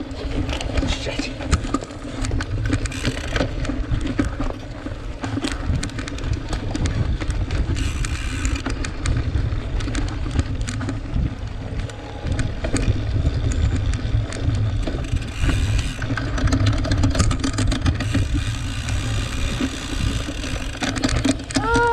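Cyclocross bike ridden hard over rough ground: irregular rattling and clicking from the bike, over a steady low rumble of wind on the camera microphone.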